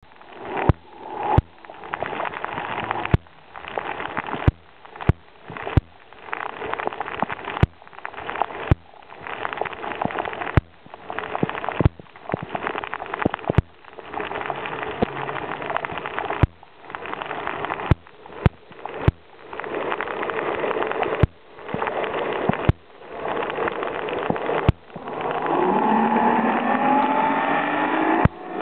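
Rushing water noise picked up by a snorkeler's camera in the sea, broken every second or two by short dropouts, each marked by a sharp click. Near the end a pitched drone with shifting tones comes in and grows louder.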